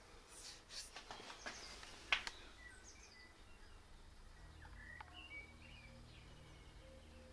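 Faint outdoor ambience with scattered bird chirps and a low steady hum coming in about halfway through. Several light clicks and taps fall in the first two seconds, the sharpest about two seconds in.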